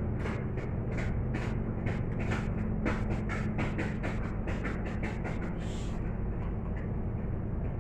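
Eating sounds: short clicks and rustles of fingers picking at rice in crinkly brown-paper food wrappings, and of chewing, over a steady low hum.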